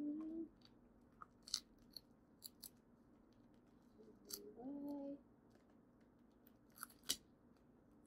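Faint, scattered little clicks and crinkles as an IV dressing and its tape are picked at and peeled with gloved fingers. Two brief wordless hums break in, one at the start and one about halfway.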